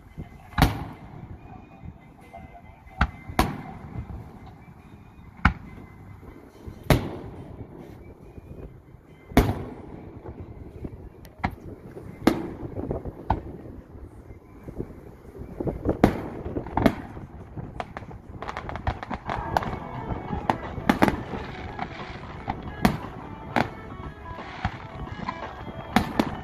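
Aerial firework shells bursting: single loud booms every one to three seconds, then, from about two-thirds of the way in, a faster run of bursts and crackling as more shells go off together.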